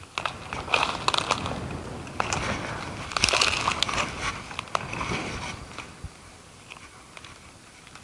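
Close rustling and crackling, with irregular clicks, for about five seconds, busiest around three seconds in, then dying down to a low background.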